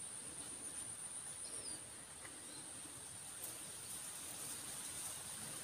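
Insects, likely crickets, droning in a steady high-pitched trill, with a couple of faint short bird chirps in the first two seconds.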